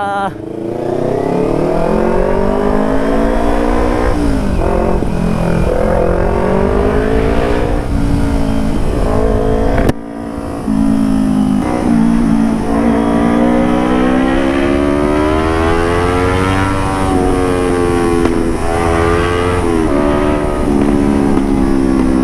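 Motorcycle engine through an aftermarket carbon DX exhaust, revving up and dropping back several times while riding, its pitch rising and falling, with a sudden brief dip about ten seconds in.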